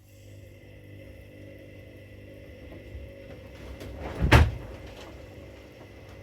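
Front-loading washing machines running a wash cycle: a steady motor hum as the drums tumble. One loud thud about four seconds in.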